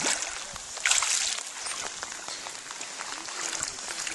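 A hooked chum salmon thrashing at the surface of shallow water, splashing hard right at the start and again about a second in, then quieter sloshing as it is drawn in.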